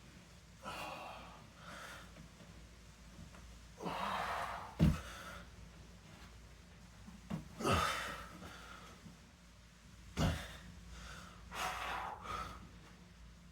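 A man's heavy, effortful breathing during a side plank march: loud exhalations and gasps every few seconds, some with a short low thud.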